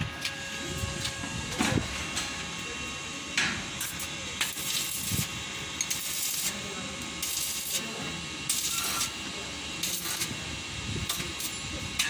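Stick (arc) welding: the electrode arc crackles in about five short bursts, each around half a second long, through the second half.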